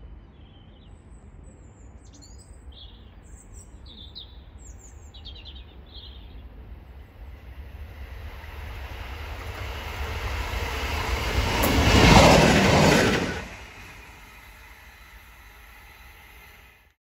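Freightliner Class 66 diesel locomotive, its EMD two-stroke V12 engine, running light engine and passing by: the engine and wheels on the rails grow steadily louder, peak about twelve seconds in, then fall away quickly. Birds chirp during the first few seconds.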